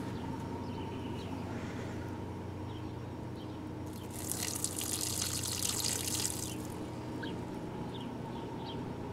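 Water poured from a glass jar onto potted plants, a splashing patter starting about four seconds in and lasting nearly three seconds, over a steady background hum.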